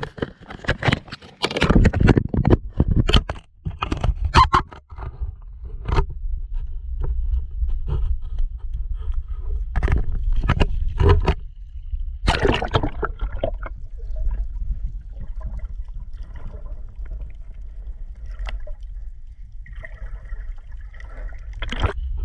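Camera handling: repeated scraping and knocking against the microphone, clustered in the first few seconds and again in the middle. Water sloshes in shallow sea water, over a steady low rumble.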